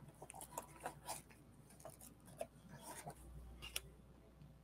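Faint, scattered light taps, clicks and paper rubbing from handling a rubber stamp and scrap paper during a test stamping.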